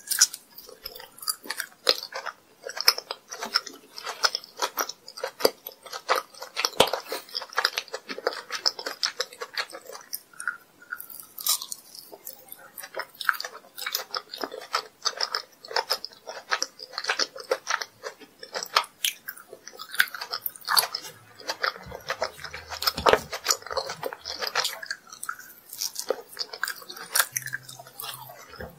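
Close-miked biting and chewing of an orange kohakuto cube, a crystallised agar jelly candy, with many quick, crisp crackles and clicks.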